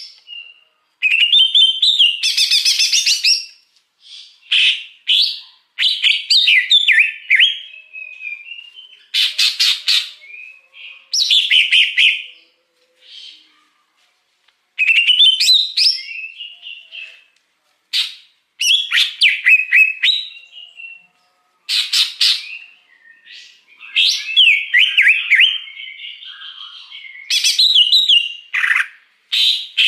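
Wild cucak hijau (leafbird) singing: varied bursts of quick chirps and whistled notes, each a second or two long, coming again and again with short pauses between.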